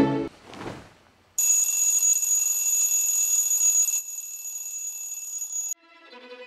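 A brief rushing sound fades out in the first second. Then a high-pitched electronic alarm rings steadily, drops in level about halfway through and cuts off shortly before the end.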